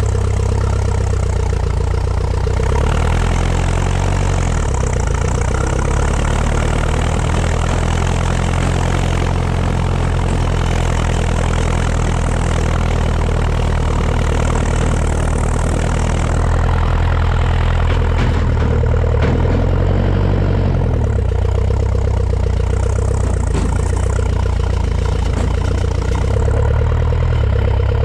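A 1950 Ferguson TED20 tractor's four-cylinder engine, running on petrol, pulls steadily along at a low speed, heard from the driver's seat. Its note dips and rises a few times as the engine speed changes.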